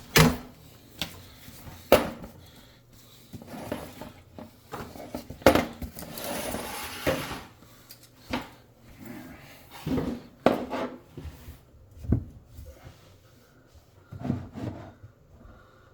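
Irregular knocks and clatter of hard objects being handled, with a few sharp louder knocks and a short stretch of rustling about six seconds in.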